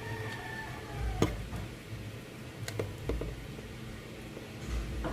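A few sharp, scattered clicks with low rustling handling noise: small metal parts being handled while wiring an electrical outlet.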